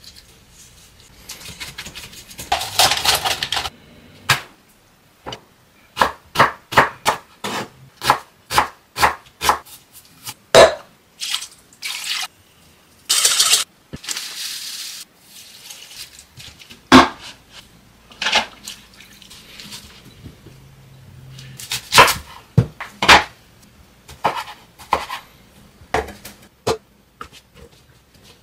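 A string of kitchen food-prep sounds. Near the start, water is poured onto masa flour in a stainless steel bowl. About six seconds in comes a run of about ten sharp, evenly spaced knocks, then short rustles as dried oregano is shaken from its bag, and scattered taps and clatters on a wooden cutting board.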